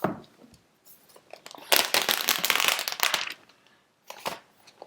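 Packaging being handled and crinkling, with a dense crackling rustle for about a second and a half in the middle and a few light clicks before and after.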